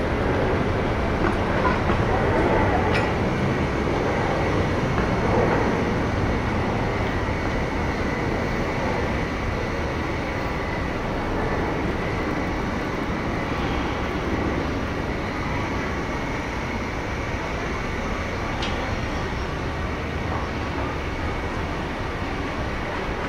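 Train running past: a steady rumble that is a little louder in the first few seconds, with a faint high steady tone and a few sharp clicks.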